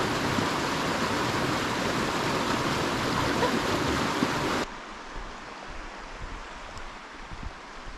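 Rushing stream water, a steady loud hiss. About two-thirds of the way through it cuts off suddenly to a quieter, duller wash of water.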